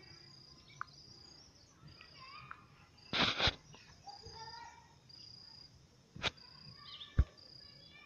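An insect chirping in a steady rhythm, a high note about once a second, with faint bird chirps beneath. A burst of rustling about three seconds in and two sharp knocks near the end.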